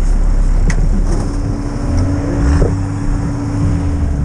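Off-road 4x4 engine running, heard from inside the cabin of a Nissan Patrol Y60, with a steady low rumble and a hum, and a few light knocks.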